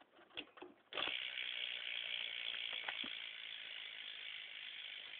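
BMX rear hub ratchet clicking fast as the spun back wheel coasts. It starts suddenly about a second in after a few small clicks, and keeps up as a steady rapid buzz of clicks.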